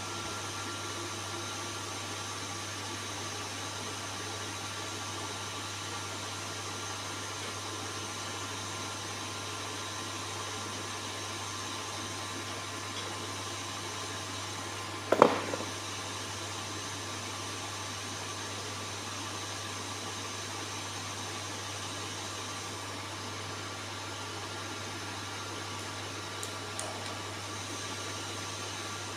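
Steady mechanical hum and hiss of a CNC milling machine and its shop equipment running, with one sharp knock about fifteen seconds in.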